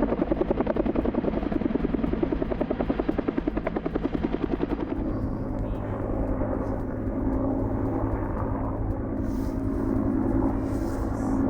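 Helicopter's rotor chopping in rapid, even pulses, which about five seconds in give way to a steadier engine drone.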